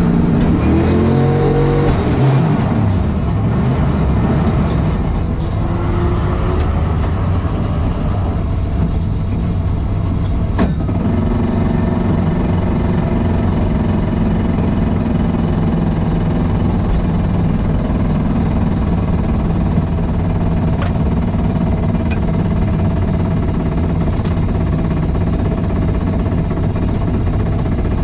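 Turbocharged LS V8 in a Buick Regal drag car revving, its pitch rising in the first few seconds, then running at a steady note.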